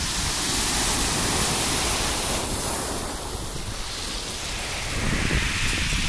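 Rough sea surf breaking and washing over pebbles against a concrete embankment. The wash swells about a second in, eases around three to four seconds, and builds again near the end. Wind is buffeting the microphone.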